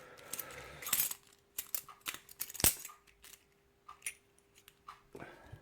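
Key being worked in a WMS five-pin euro cylinder lock: scattered light metallic clicks and key-ring jangling, with one sharp click about two and a half seconds in.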